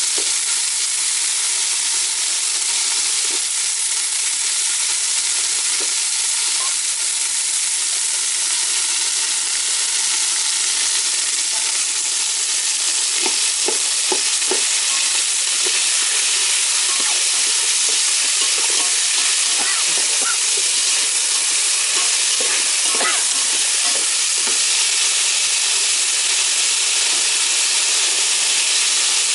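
Diced potatoes and carrots sizzling steadily in hot oil in an aluminium pot. A metal spoon scrapes and stirs them now and then, most of it from about halfway through.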